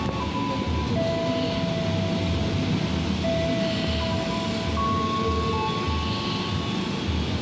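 Electric commuter train running, a steady heavy rumble with high whining tones that hold and then shift pitch in steps.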